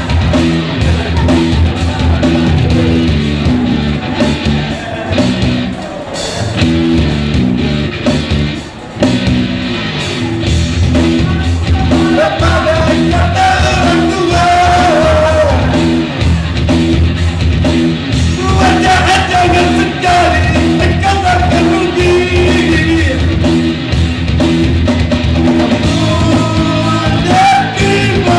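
A rock song sung live by a male vocalist over a full rock band backing, with the sung melody coming through most clearly in the second half.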